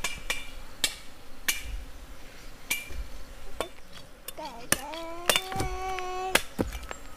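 Machete blade chopping at cassava stems and roots, a series of sharp, irregular knocks. About two-thirds of the way through, a drawn-out vocal call bends up and then holds steady for about a second and a half.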